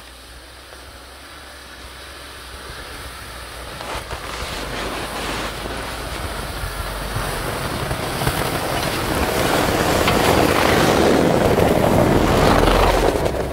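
UAZ Patriot off-roader approaching through snow and passing close by: engine and tyres churning the snow, growing steadily louder to a peak near the end, then cutting off suddenly.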